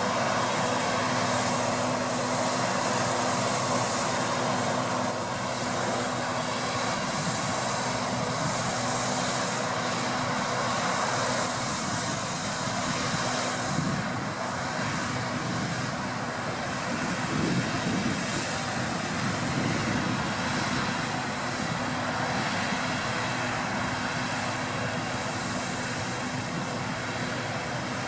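Deutz-Fahr 6060 combine harvester running steadily in the field, a continuous machine drone with a few steady tones in it.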